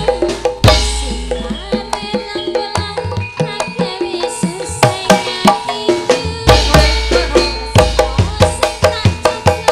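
Live Javanese gamelan (karawitan) playing a lively tayub piece: fast, rhythmic kendang drum strokes over ringing bronze metallophones, with a female singer (sinden) singing through the PA. A deep gong stroke sounds about six and a half seconds in.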